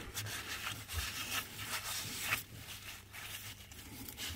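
A rag in a gloved hand wiping the engine's oil filter mounting face clean: faint, irregular rubbing and rustling with a few light scuffs. This is the sealing surface being cleaned before a new filter goes on.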